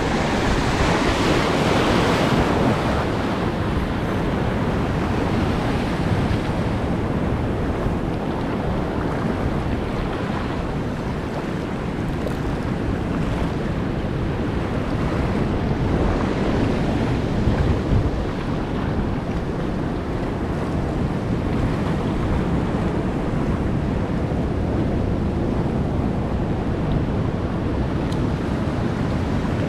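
Ocean surf washing over shoreline rocks, with a stronger wash of water about two seconds in. Wind buffets the microphone.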